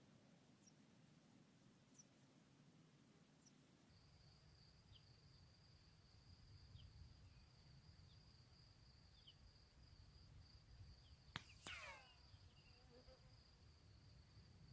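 Faint, steady insect trilling: a high, fast-pulsing trill that changes about four seconds in to a lower steady one. About eleven seconds in, a Hatsan air rifle shot gives a sharp crack, followed a moment later by a second crack with a short falling ring.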